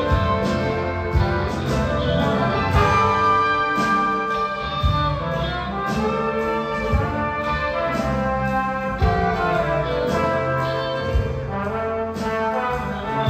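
A rock band and symphony orchestra playing an instrumental passage live, the brass section to the fore.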